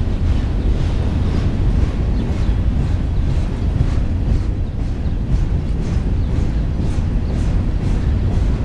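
Freight train cars rolling past: a steady low rumble, with faint regular clicking of the wheels over the rail joints, a few clicks a second.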